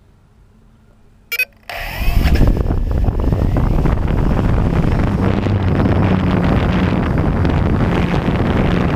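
Small multirotor drone's electric motors and propellers spinning up after a brief blip, with a short rising whine, then running steadily at lift-off power with a low hum; the propeller wash buffets the onboard microphone as the drone lifts off.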